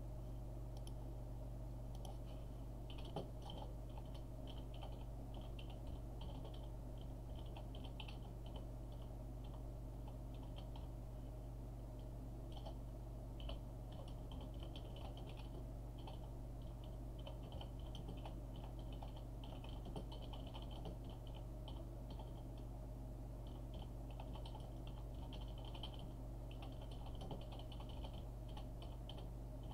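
Computer keyboard typing: irregular runs of quick key clicks with short pauses between them, over a steady low hum.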